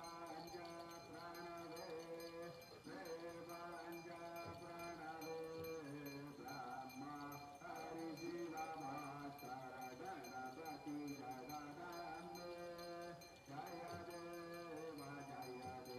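Hindu devotional aarti chant, a voice holding long notes that step up and down, with a small brass hand bell ringing steadily behind it.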